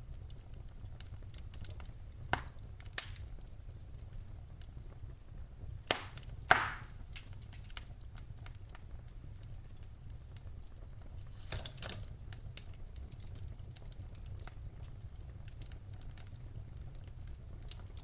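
Wood fire burning in a fireplace: logs crackling with fine ticks over a steady low rumble. Sharp pops come about two and three seconds in, a pair near six seconds with the loudest at six and a half, and another cluster around twelve seconds.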